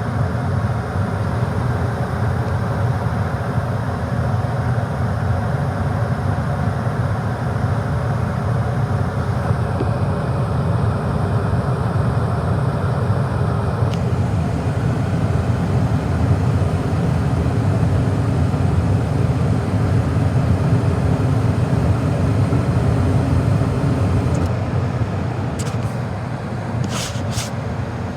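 Gas furnace running: a steady, loud low rumble of the burner and blower, with a few sharp clicks near the end.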